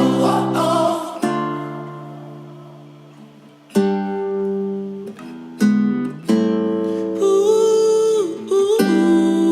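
Background music: acoustic guitar chords strummed a few times, each left to ring and fade, with a held wordless vocal line coming in near the end.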